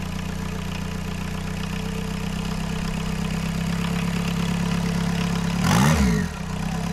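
VW 1.6 turbodiesel four-cylinder idling steadily with a diesel clatter while its injection pump's fuel screw is tuned. About five and a half seconds in, the revs are blipped once, climbing and falling straight back to idle: a check for rev hang.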